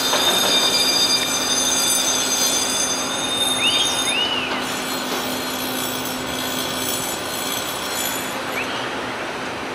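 Panama Canal electric towing locomotive ('mule') running along its rail track on the lock wall: a steady mechanical rumble with a high whine that fades about four seconds in, and a few short squeaks around then.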